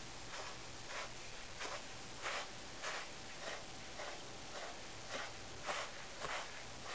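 Pet brush strokes through a Siamese cat's fur: a steady run of short scratchy swishes, about one every half-second.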